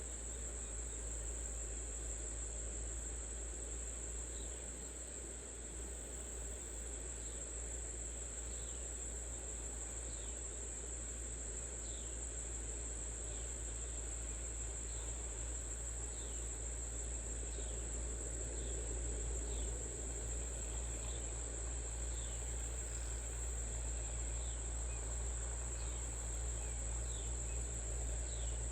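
Steady chorus of crickets, one high unbroken trill, with faint short chirps repeating about once a second and a steady low hum underneath.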